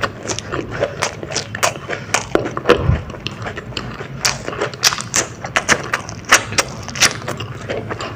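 Close-miked eating of a crispy battered baby corn dog: irregular crunches and wet mouth clicks from chewing, several a second, with a low thud about three seconds in.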